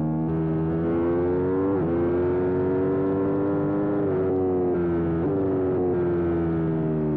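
Aprilia sport bike engine under hard acceleration on track: it climbs in pitch, with a quick upshift about two seconds in. Past the middle the rider brakes, and the engine note drops through downshifts, with wind rush over the bike.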